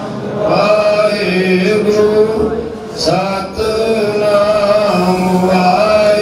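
Men's voices chanting a Sikh devotional kirtan in long held phrases, with a short break about three seconds in.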